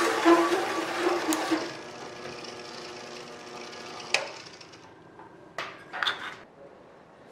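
Milling machine spindle turning an adjustable circle cutter through aluminium sheet: loud cutting noise for about the first second and a half, ending as the cutter breaks through and frees the disc. The spindle then keeps running and grows quieter, with a sharp knock about four seconds in and two shorter knocks near the end.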